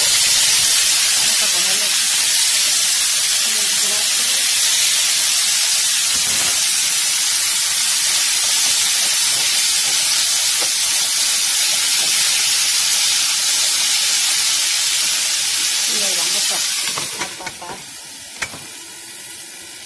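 Broccoli florets sizzling loudly in a hot buttered nonstick pan as they are tipped in and turned with a spatula. About seventeen seconds in, a glass lid is set on with a few clinks and the sizzle drops to a softer hiss as the broccoli steams.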